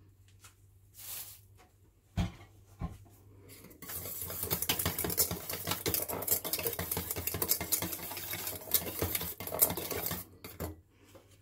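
Sauce being stirred briskly in a bowl, the utensil clicking rapidly against the bowl for about six seconds, after two knocks a couple of seconds in.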